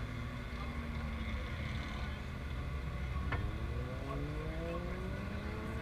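Distant engines of small race vehicles lapping the track: one engine's pitch sinks slowly as it slows, then a little past halfway an engine climbs steadily in pitch as it accelerates, over a constant low rumble. A single sharp click comes about halfway through.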